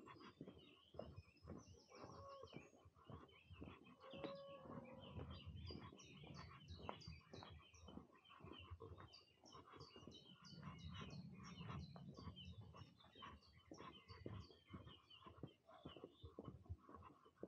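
Faint birdsong of many quick high chirps from several birds, over the crunch of footsteps on a path.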